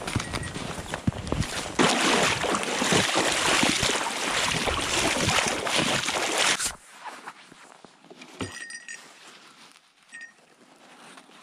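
Footsteps crunching through deep snow, then loud splashing as wader boots stride through a shallow river for about five seconds, cutting off suddenly. After that it is much quieter, with a few faint high ticks.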